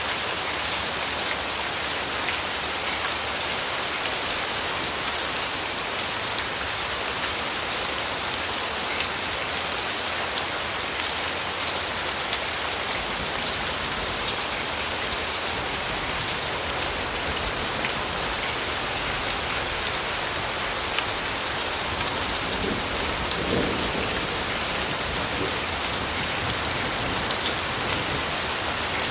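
Steady rain falling on a surface: an even hiss with scattered individual drop ticks.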